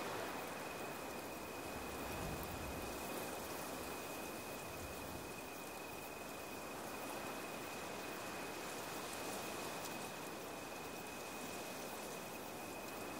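Steady rain-like rushing noise, with a thin, faint high whine held at one pitch.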